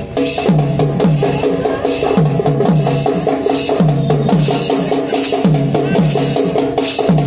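Drum-led Chhau dance music. Drum strokes drop sharply in pitch, often in quick pairs, over a held melodic line, with bright crashes on top in a steady driving rhythm.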